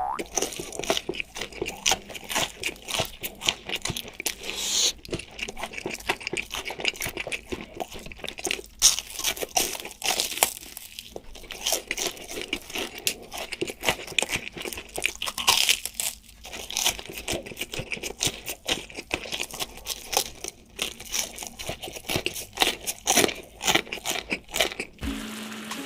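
Close-miked eating of crunchy food: rapid, irregular crackling crunches of bites and chewing.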